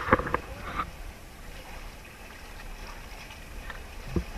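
Wind on the microphone and sea noise aboard a small outrigger fishing boat, with a few sharp knocks in the first second and a low thud near the end, from the pole and handline being handled.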